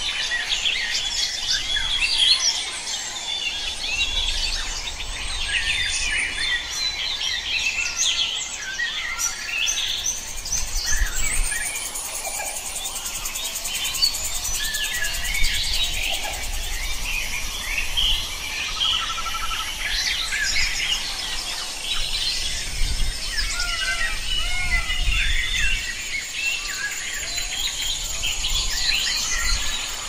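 A dense chorus of many wild birds chirping, whistling and trilling at once, call over call throughout, with a low rumble underneath that swells and fades.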